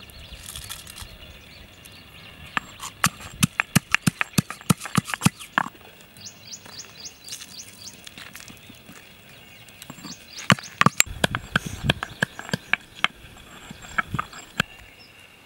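A stone pestle knocking in a stone mortar, pounding dried red chillies with salt, in two runs of quick sharp strokes with a pause between them.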